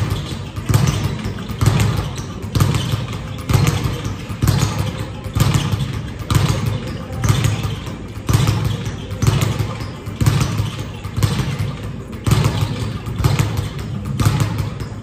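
A regular low thump, a little more than once a second, over constant background noise.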